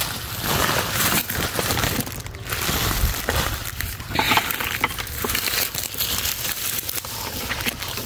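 Crinkly rustling of a woven polypropylene sack being handled around papayas on the tree, followed by steady rustling of dense leafy undergrowth with small crackles.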